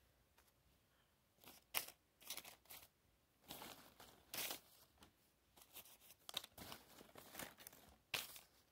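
Faint crinkling and tearing of small plastic wrappers as miniature toy packages are unwrapped, in short scattered bursts with a couple of sharp clicks.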